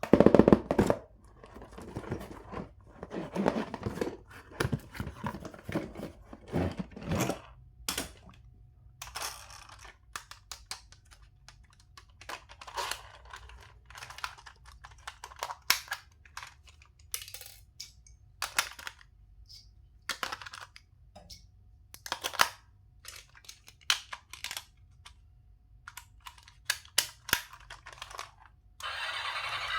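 Toy packaging and plastic toys being handled: irregular clicks, taps and short rustles, with a denser run of tearing and crinkling in the first seven seconds or so.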